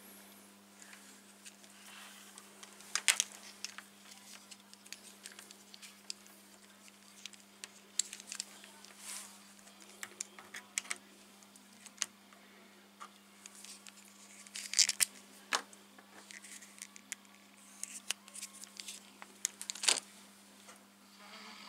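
Scattered clicks, taps and rustles as multimeter test leads and clip probes are handled and fastened inside a metal tube-radio chassis, over a steady low hum.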